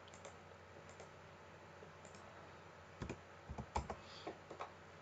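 Computer keyboard keystrokes as a filename is typed. A few faint clicks come near the start, then a quick cluster of sharper key clicks a little past halfway.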